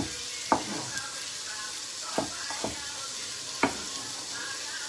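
A kitchen knife slicing onion on a wooden cutting board, four sharp cuts at uneven intervals. Under them runs a steady sizzle, which fits onions frying in olive oil in the pot.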